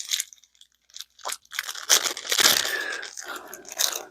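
Packaging being handled: crinkling and rustling, with scattered small clicks and taps. The longest stretch of rustling comes about two seconds in.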